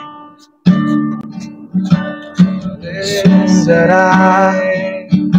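Acoustic guitar strumming chords; it stops briefly about half a second in, then the strumming starts again.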